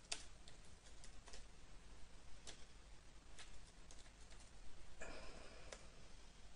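Faint, irregular clicks of keys on a computer keyboard as text is typed, a few keystrokes at a time, with a brief muffled sound about five seconds in.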